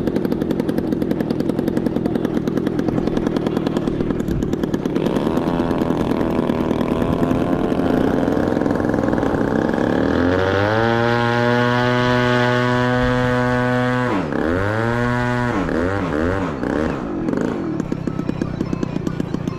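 Radio-controlled model warbird's engine running on the ground, then throttled up to a high, steady pitch and held for about three seconds before being cut back sharply and blipped up and down once more.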